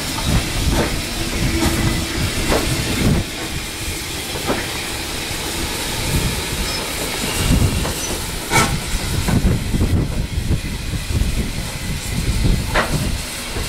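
An Austerity 0-6-0 saddle tank steam locomotive moving slowly, with a steady hiss of steam over a low rumble and a few sharp clanks.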